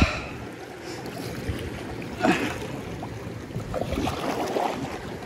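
Kayak paddle strokes splashing in sea water: a sharp splash at the start and another a little over two seconds in, over a steady hiss of moving water.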